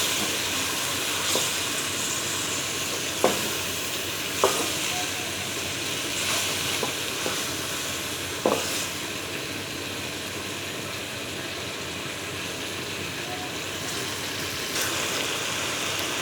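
Soaked dal being stirred into hot fried masala in a pot, a steady sizzle, with a few short knocks of the stirring spoon against the pot.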